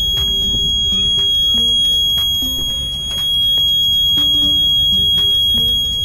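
Fire alarm panel's trouble sounder giving a steady high-pitched tone. The panel is a Simplex 4004R agent-release panel, and it signals trouble because the smoke detector head is off its base; the tone stops once the head is refitted.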